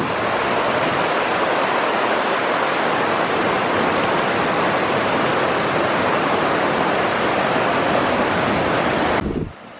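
Steady, even rush of fast-flowing water, like a river running high, which cuts off abruptly near the end.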